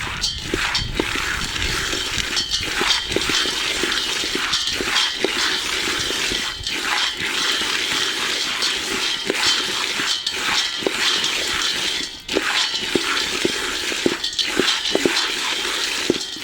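Peanuts being stirred and turned in a hot saucepan while roasting: a steady rattle and scrape of the nuts against the pan with a continuous hiss, dipping briefly near the end.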